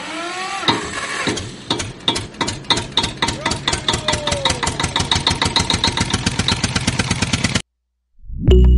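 Tractor engine starting: a few cranking sweeps, then it catches and chugs in an even beat that quickens steadily before cutting off abruptly near the end.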